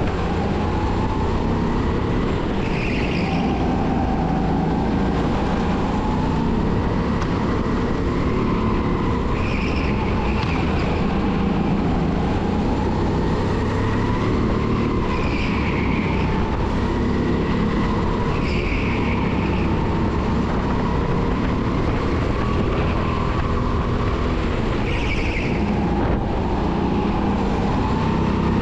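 270cc four-stroke kart engine running hard, heard onboard, its pitch rising and falling with the throttle through a lap. Brief tyre squeals come in several times.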